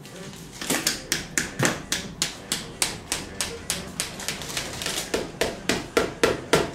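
Hammer tapping the end of a wooden support dowel to drive it down through a stacked cake: quick, even knocks, about three a second, starting about half a second in.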